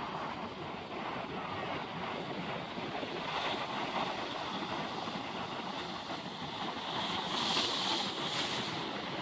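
Ocean surf breaking against a jetty of large boulders, a steady wash of water. About seven seconds in, a wave crashes and splashes over the rocks close by, and the sound grows louder and hissier.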